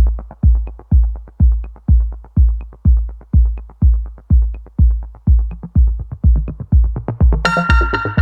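Electronic background music: a steady drum-machine kick about two beats a second, joined by a synthesizer chord near the end.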